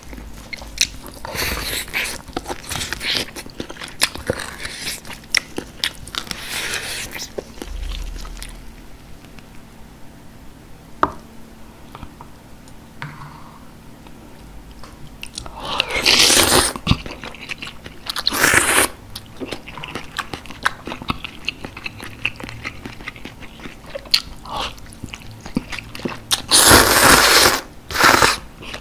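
Close-miked eating: chewing and biting meat off a beef short rib with small wet clicks, then, in the second half, several loud, long slurps of hot galbitang broth from a spoon.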